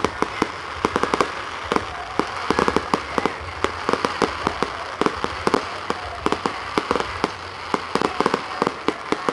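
Fireworks display going off: a dense, irregular barrage of sharp bangs and cracks, several a second, over a steady background rumble.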